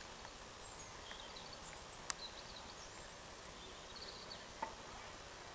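Faint outdoor ambience by a lake, with scattered high, thin chirping calls and two sharp clicks, about two seconds and four and a half seconds in.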